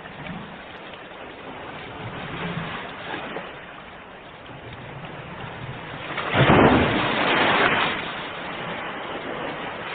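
Ocean waves washing ashore: a steady wash of surf with a loud wave breaking about six and a half seconds in, then easing back.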